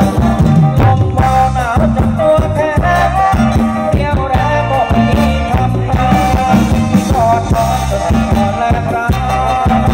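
Loud live Thai ramwong music played through a large PA: a band with a steady bass beat and a singer carrying a wavering melody.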